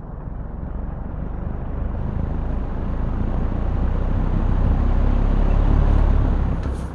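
Vintage Vernco-made Sears Kenmore 20-inch all-metal box fan starting up on high, its metal blades spinning up so that the rush of air grows steadily louder for about six seconds. The sound then drops off sharply near the end.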